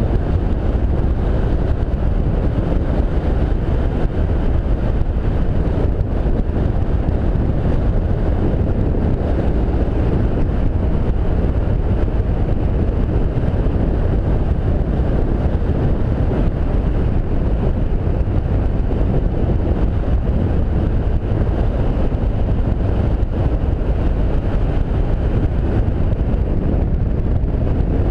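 Motorcycle riding at road speed: a steady low wind rumble buffeting the action camera's microphone, with the motorcycle's engine and tyre noise beneath it.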